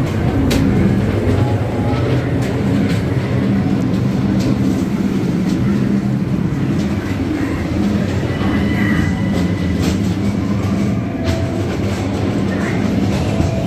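Ghost train dark-ride car running along its track: a steady rumble of the wheels, with scattered clicks and knocks throughout.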